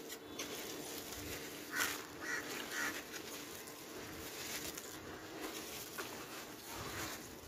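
Wet sand-and-dirt chunks crumbling and squelching as hands squeeze and break them in a tub of muddy water. About two seconds in come three short calls, about half a second apart, the loudest sound here.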